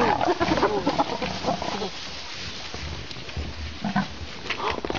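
A wild animal vocalising in a run of short, wavering calls over the first two seconds. The calls then fall away, with a brief burst and a few short clicks around four seconds in.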